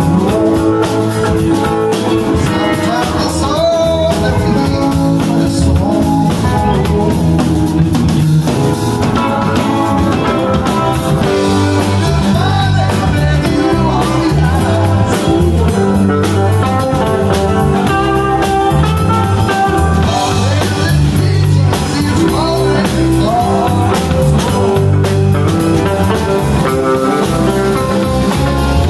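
Live band playing loudly: electric guitars, keyboard and drum kit, with a voice singing.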